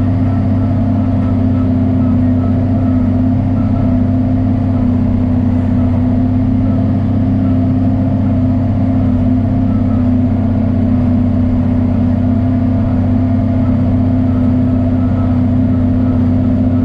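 John Deere 4430 tractor's six-cylinder diesel engine running steadily at a constant speed.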